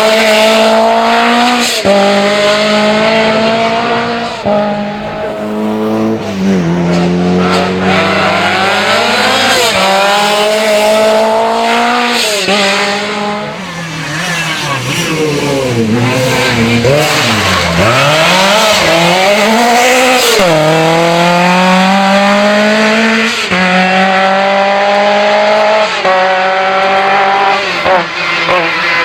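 Lancia 037 rally car's supercharged four-cylinder engine revving hard, climbing through the gears with repeated upshifts where the pitch drops and rises again. In the middle the revs fall and pick up again, and there is some tyre squeal.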